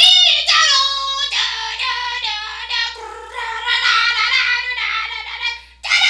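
A woman singing an anime opening theme in a high voice, with little accompaniment heard beneath it. The voice breaks off briefly near the end.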